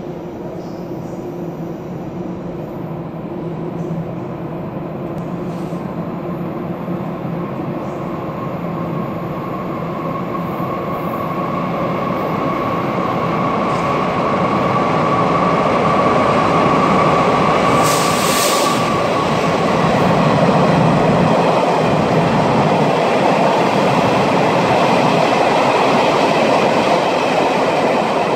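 Chu-Kuang Express passenger train running through the station, its rolling noise building as it comes nearer and staying loud as the cars pass. A thin steady whine runs through the middle, and there is a short hiss about eighteen seconds in.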